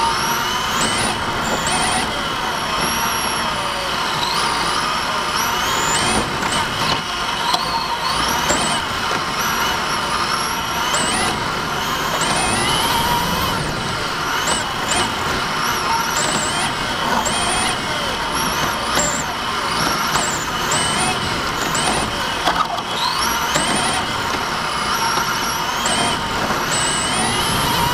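Team Associated TC5 1/10 electric touring car's motor and gear train whining, the pitch rising and falling again and again as the car accelerates on the straights and slows into the corners.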